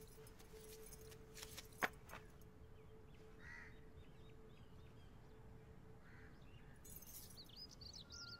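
Quiet ambience with faint bird chirps here and there, busier near the end. A single sharp click comes about two seconds in, and a steady tone fades away over the first few seconds.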